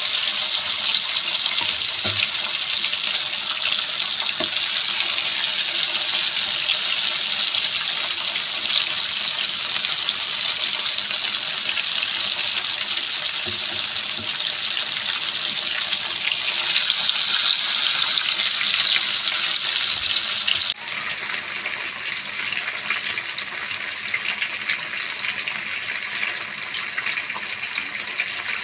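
Masala-coated tilapia slices shallow-frying in hot oil in a pan: a dense, steady crackling sizzle. About two-thirds of the way through it drops suddenly to a somewhat quieter, thinner sizzle.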